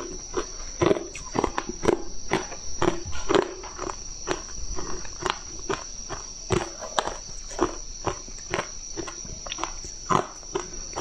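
Crunching of hard frozen ice chunks being bitten and chewed, close to the microphone: irregular sharp cracks, a few each second.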